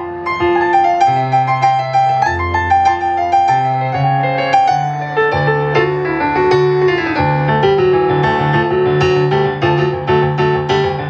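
Solo stage keyboard played with a piano sound, an instrumental passage with long held bass notes under a running right-hand melody.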